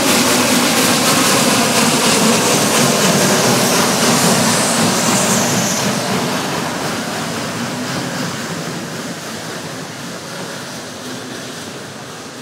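Geared steam locomotive working a narrow-gauge train past, its exhaust and running gear loud at first and then fading steadily from about five seconds in as it moves away.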